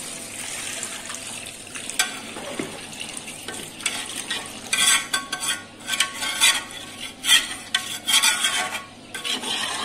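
Metal ladle stirring and scraping against the sides of an aluminium cooking pot of chicken and water broth, over a steady sizzle. About halfway through the strokes get louder and busier, in quick irregular scrapes and clatters.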